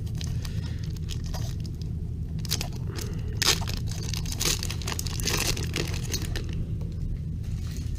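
A paper baseball card pack wrapper being torn open and crinkled by hand, in a series of crackling bursts, over a steady low hum.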